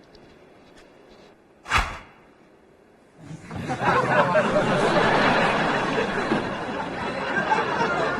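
A single thud about two seconds in, then a studio audience laughing steadily from about three seconds in.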